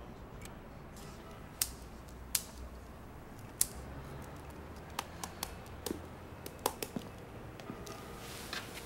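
Sparse, irregular sharp clicks and taps over a faint low room hum, with a cluster of them about two-thirds of the way through.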